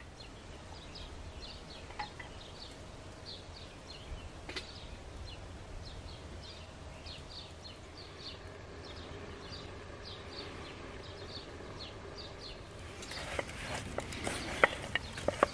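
A small bird chirping in short high notes, about twice a second. Near the end, a spoon scrapes and knocks against a frying pan as fried food is tipped into a wooden bowl.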